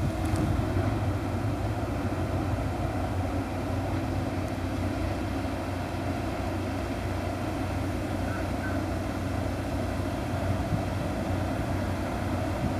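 Tugboat diesel engine running with a steady low drone while the tug manoeuvres, its propeller churning the water.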